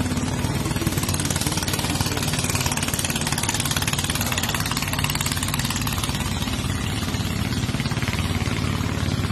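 Engine of a racing ketinting longtail boat running flat out, a steady, rapidly pulsing engine note.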